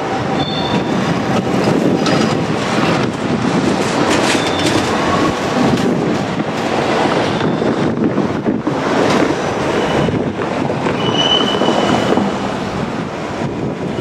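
JR Kyushu 787 series electric train rolling across the yard's switches and rail joints, the wheels clacking with a few brief high-pitched squeals.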